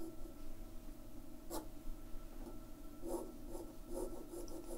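Graphite pencil drawing on paper: a few short, light strokes with pauses between them, one sharper stroke about one and a half seconds in.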